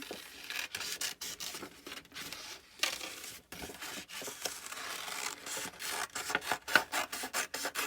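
Scissors cutting slowly around a paper cutout: a run of short snips with the paper rustling as it is turned. The snips come closer together in the second half.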